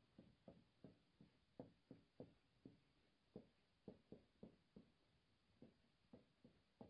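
Very faint squeaky strokes of a marker on a whiteboard as letters are written, short and uneven, about three a second.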